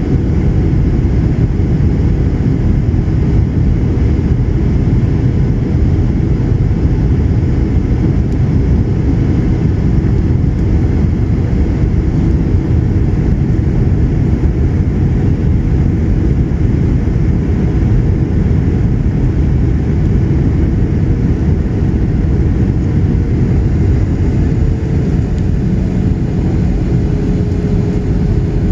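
Steady inside-cabin noise of a 737-900ER in flight: the drone of its CFM56 turbofan engines and rushing airflow, loudest in the low end. A faint engine tone sinks slightly in pitch near the end.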